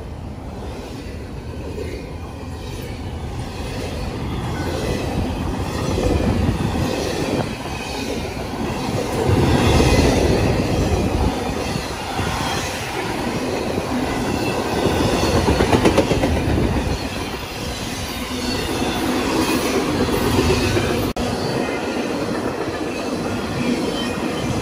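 Freight train's well cars rolling past close by: steel wheels rumbling and clacking over the rails, growing louder through the first ten seconds, then swelling and easing as the cars go by.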